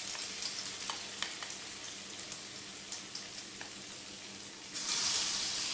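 Tofu patties frying in hot oil in a wok: a steady sizzle with scattered crackles. About three-quarters of the way through, the sizzle jumps suddenly louder as another spoonful of the tofu-and-egg mixture goes into the oil.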